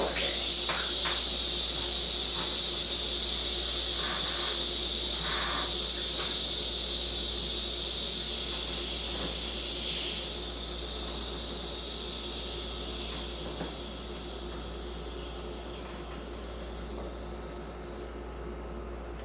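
Carbonated root beer fizzing, just opened from a two-liter bottle. It is a loud, high hiss that starts suddenly, slowly fades and dies out near the end, with a few faint taps along the way.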